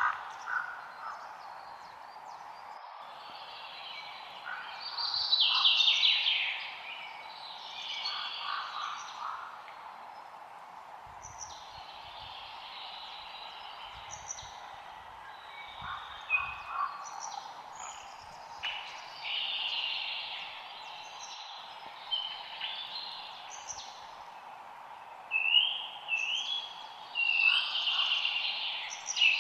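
Forest ambience of several songbirds chirping and trilling over a steady background hiss, with louder bursts of song about five seconds in and again near the end.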